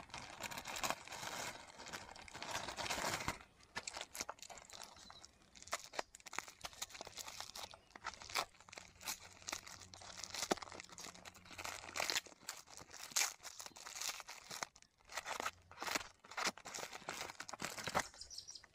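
Plastic mailer and brown paper packaging crinkling and tearing as they are slit with a knife and pulled apart by hand: irregular crackles and rustles, busiest in the first few seconds, then scattered.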